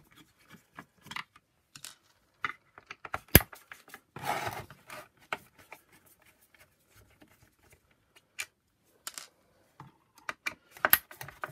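Scattered clicks and taps of a Phillips screwdriver working screws out of a plastic vacuum power-nozzle housing, with a brief scrape a little after four seconds. One sharp click, about three and a half seconds in, is the loudest.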